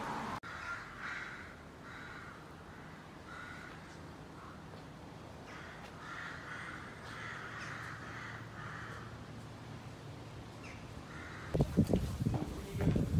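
Crows cawing, a string of short calls one after another. Near the end, wind buffets the microphone in loud gusts.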